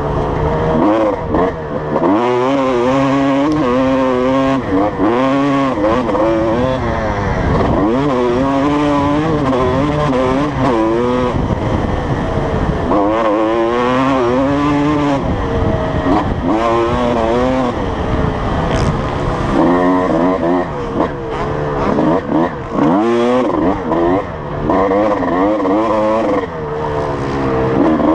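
Honda CR250 single-cylinder two-stroke motocross engine ridden hard. It revs up through the gears again and again, rising and falling in pitch, with brief drops each time the throttle is shut for a corner.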